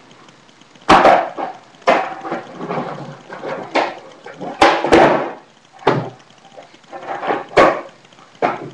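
Skateboard on concrete: wheels rolling, with about eight sharp clacks as the tail pops and the board slaps down on trick attempts.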